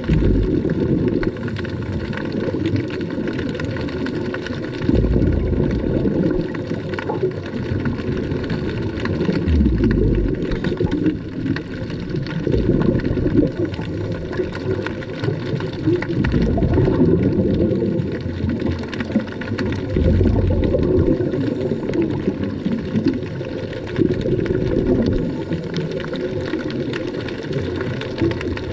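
Muffled underwater noise picked up through a camera's waterproof housing: a low, churning rumble of moving water, with a deeper surge every few seconds.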